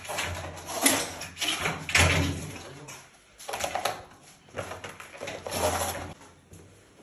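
Scuffling and rattling as an angry cat is wrestled out of a plastic pet carrier with thick protective gloves, in several short, irregular bursts.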